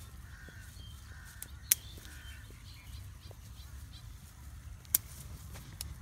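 Hand shears snipping through marigold stems: two sharp snips about three seconds apart, over a low steady rumble.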